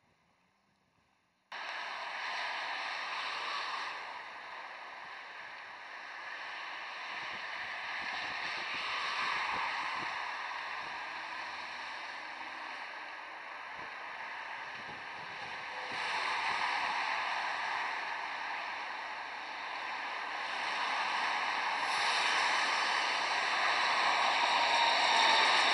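A long articulated Dresden tram running along the track toward and past the microphone. Its rolling noise, mixed with wind on the microphone, starts abruptly about a second and a half in and grows louder toward the end as it comes near.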